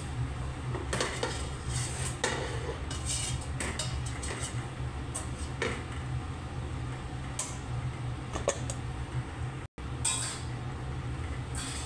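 Metal spoon scraping and clinking against a stainless-steel pot and frying pan as cooked rice is scooped from the pot into the pan: irregular clinks and scrapes over a steady low hum. The sound drops out for an instant near the end.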